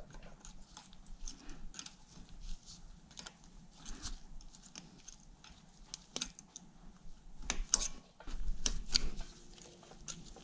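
Pliers working the cotter pin out of a front CV axle nut: irregular small metal clicks and scrapes, with a cluster of sharper clicks about three-quarters of the way through.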